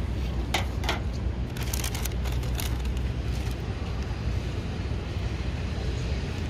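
Steady low rumble of a vehicle or traffic, with a handful of sharp clicks and clatters in the first three seconds.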